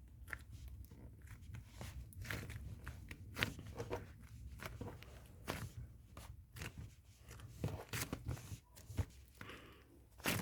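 Slime being handled and kneaded by hand, giving irregular small sticky clicks and crackles.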